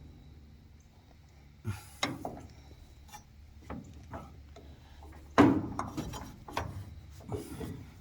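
Threaded pipe fittings being worked with channel-lock pliers: irregular clicks, knocks and scraping of metal as a 90-degree elbow is turned on, with a louder knock about five seconds in.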